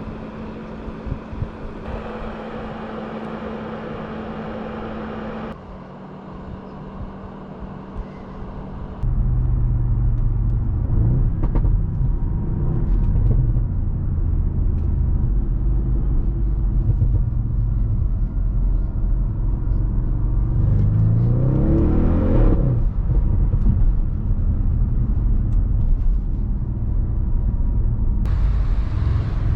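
2015 Audi RS6 Avant's twin-turbo V8 engine and exhaust on the move: a steadier, quieter drone at first, then from about a third of the way in a much louder low rumble. About two-thirds through, the revs climb sharply under acceleration and then fall away abruptly, and they begin rising again near the end.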